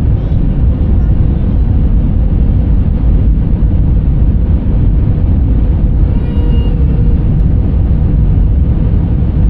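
Airliner cabin noise: a loud, steady low rumble of the jet's engines and airflow heard from a passenger seat, with a faint short pitched sound about six seconds in.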